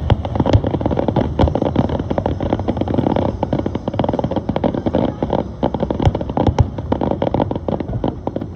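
Fireworks going off in a dense run of cracks and pops, several a second, over a steady rumble of bursts.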